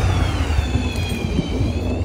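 Motor engine noise: a steady low rumble with a high whine that slowly falls in pitch, then levels off near the end.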